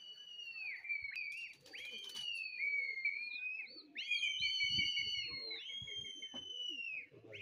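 People whistling at a flock of pigeons: a string of long, high, sliding notes, several overlapping, each rising at the start and dropping away at the end. A short rustle comes about two seconds in.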